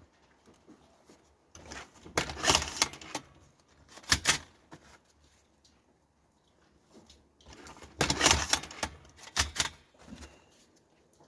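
Hand-operated mechanical cigarette rolling machine being worked, its metal parts clattering and clicking in two main bursts a few seconds apart, each followed by a shorter click.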